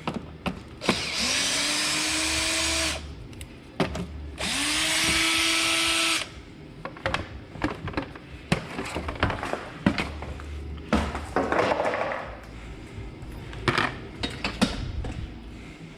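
A cordless drill-driver runs twice for about two seconds each, its motor pitch rising as it spins up and then holding steady, followed by tool and parts clicks and knocks, with a shorter, quieter run of the drill near the eleven-second mark.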